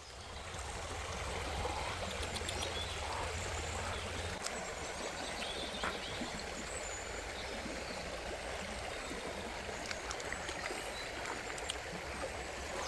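Shallow rocky stream running and trickling, with a scattering of light taps and small splashes as feet and hands move through the water.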